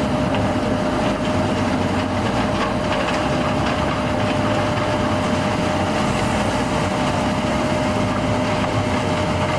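Combine harvester running steadily: an even engine drone with a constant whine held above it.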